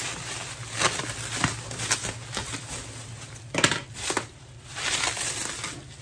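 Plastic bubble wrap being handled and crumpled by gloved hands, an irregular crinkling with a few sharper crackles about a second in and again around four seconds in.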